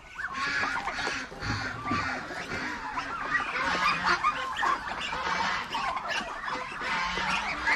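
A mixed flock of ducks, turkeys and chickens calling over one another in a continuous clamour at feeding time.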